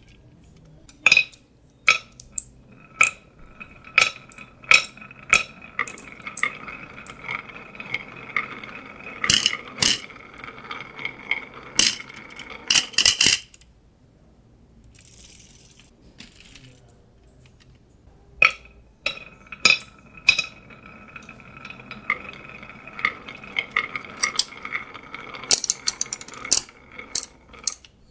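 Marbles rolling and clacking down a wooden HABA marble run. Sharp clicks come as they drop and hit track pieces, over a steady ringing rolling tone. It happens in two runs: the first stops suddenly about 13 seconds in, and the second starts about 18 seconds in.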